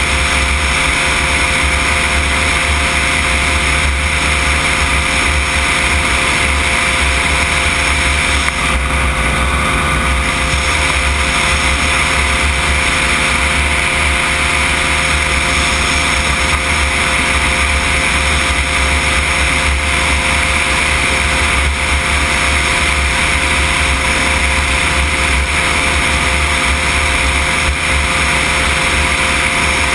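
Cosmos flex-wing microlight trike's engine and propeller droning steadily in cruising flight, at an even, unchanging power.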